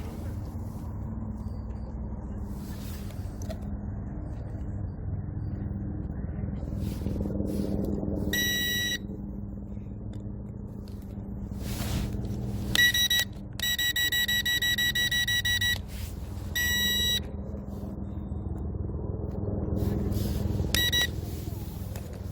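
Electronic warning beeps from an SG906 Pro 2 drone's remote controller: five beeps, one of them about two seconds long, over a steady low hum.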